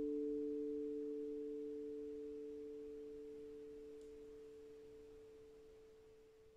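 Meinl Sonic Energy D-Kurd handpan struck with mallets, its last two notes ringing on as pure, steady tones and fading away evenly.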